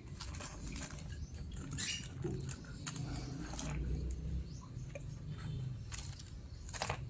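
Lead airgun pellets clicking and rustling against one another inside an oiled plastic bag as it is worked by hand to coat them with lube: a quick, irregular patter of small clicks.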